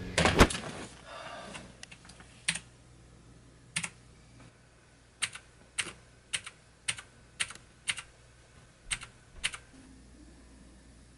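Sharp single computer clicks, about two a second with one short pause, as photos are stepped through one by one; a few stray clicks come first. A loud knock sounds just after the start.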